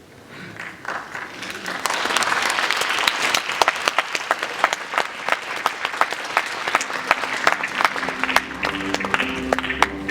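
Audience applauding, swelling over the first two seconds into steady clapping with many sharp individual claps. Music comes in under the applause near the end.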